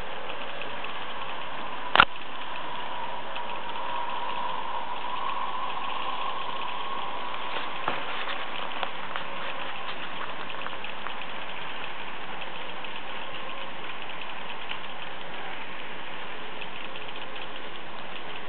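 Märklin H0 model trains running on the layout: a steady rolling and motor hum from the locomotives and coaches on the track, with light ticks over rail joints. One sharp click comes about two seconds in, and a faint motor whine swells and fades between about three and ten seconds in.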